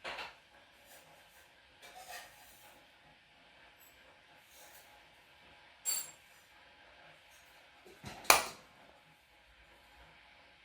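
Small tools and parts being handled and set down on a workbench: a few separate light clicks and clinks, the loudest about eight seconds in.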